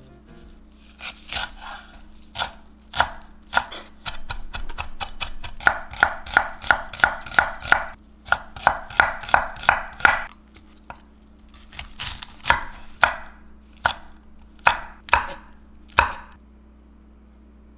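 Kitchen knife chopping on a cutting board: scattered chops, then steady runs of about three chops a second in the middle, stopping about sixteen seconds in.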